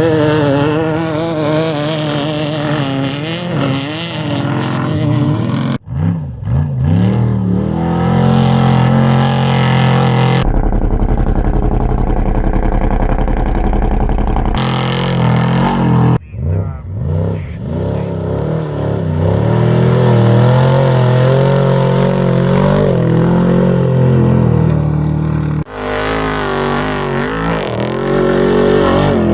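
Off-road race car and truck engines running hard, their pitch rising and falling as they rev and pass. Several short clips are cut one after another, so the sound changes abruptly a few times.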